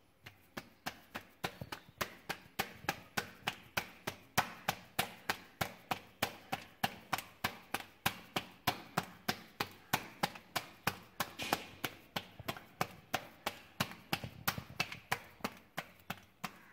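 Hands slapping a rolled-out naan dough to stretch it, a rapid even patter of about four soft slaps a second.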